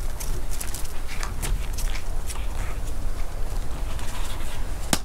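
Light clicks and taps of a toy poodle puppy's claws scampering on a wooden deck, mixed with a person's slipper footsteps on the boards, with one sharper knock near the end.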